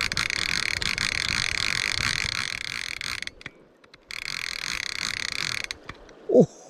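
Fly reel's drag screaming as a hooked salmon pulls line off in a run, a fast buzzing ratchet that stops suddenly about three seconds in and starts again a second later before stopping again. A short, loud falling sound follows near the end.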